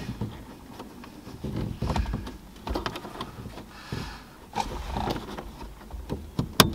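Small plastic clicks and scrapes of a plastic trim tool prying at a stuck map-light bulb in a truck's overhead console, with one sharp click near the end as the bulb pops free of its socket.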